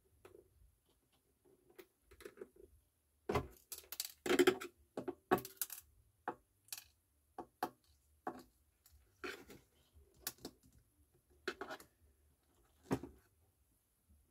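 Irregular clicks and taps of a small screwdriver working the metal retaining clips off a turntable's motor mount, with a run of louder clicks about three to six seconds in.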